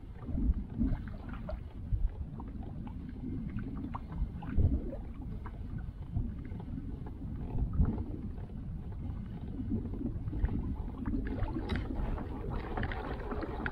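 Low, rumbling wind and water noise aboard a small fishing boat, with a few dull knocks against the hull.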